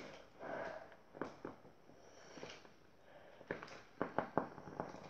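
Crunchy biscuit bitten and chewed close to the microphone: scattered sharp crunches, a couple about a second in and a cluster near the end.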